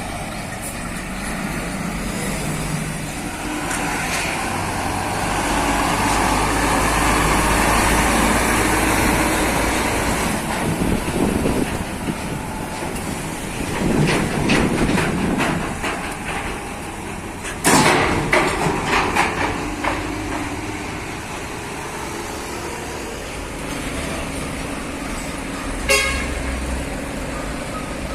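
Heavy diesel trucks running steadily, swelling louder for several seconds early on, with a loud sharp knock about two-thirds of the way through followed by a few smaller ones, and a short rapid rattle near the end.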